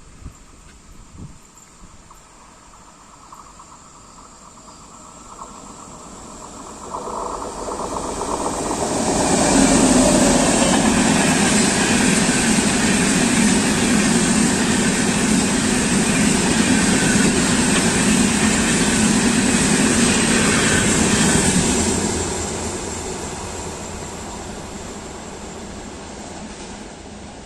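Passenger express train passing through a station: the rushing rumble of the locomotive and coaches on the rails builds over several seconds, stays loud and steady for about twelve seconds, then fades away.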